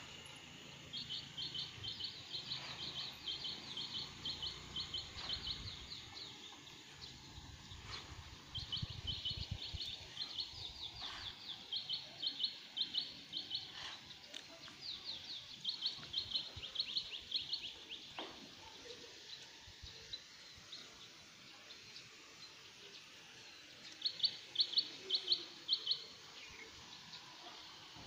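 A small bird calling in bursts of quick, high-pitched chirps, each burst a rapid train of short notes lasting a few seconds, over a steady background hiss of open-air ambience.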